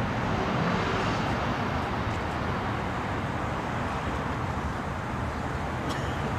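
Yamaha YZF-R1's crossplane-crank inline-four idling steadily through a Yoshimura slip-on exhaust, with no revving.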